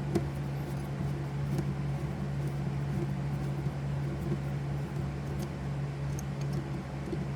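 A steady low machine hum, with a few faint light clicks of small metal parts being handled.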